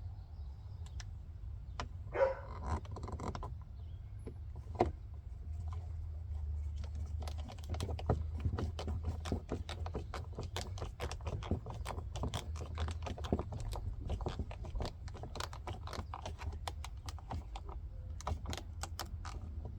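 Quick, irregular small clicks and rattles of door-panel parts and hardware being handled and fitted by hand, over a steady low hum.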